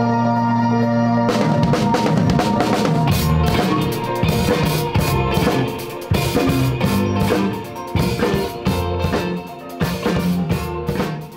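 Rock band music: a held, organ-like chord cuts off about a second in and a full drum kit comes in with bass, playing a steady beat.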